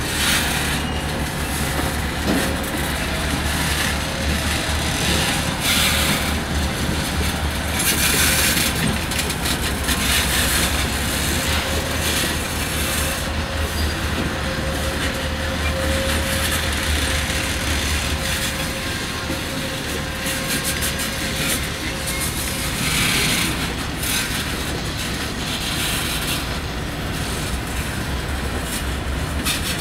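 Norfolk Southern diesel locomotives running while shunting a train, a steady low engine rumble with railcars rolling on the rails and several brief bursts of higher-pitched wheel noise.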